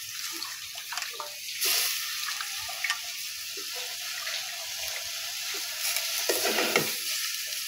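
Rice and lentils sizzling in hot oil with a steady hiss, as chunks of pumpkin and yardlong bean are dropped in by hand with small clicks. The hiss swells about a second and a half in and again near the end.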